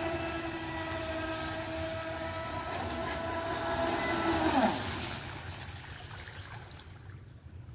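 Radio-controlled model speedboat's motor whining at a steady high pitch, then about four and a half seconds in the pitch drops quickly and the sound fades away.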